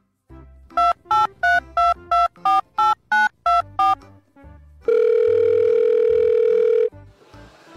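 A quick run of about eleven short electronic beeps, roughly three a second and slightly changing in pitch, like a phone keypad, followed by one long steady beep lasting about two seconds.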